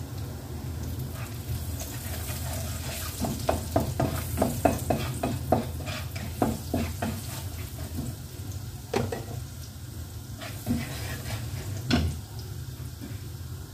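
Food sizzling in oil in a wok while a wooden spatula stirs it: a quick run of knocks and scrapes of the spatula on the wok, about three a second for some four seconds, then a few single knocks. A steady low hum runs underneath.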